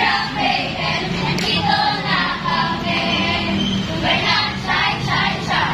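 A group of girls singing together.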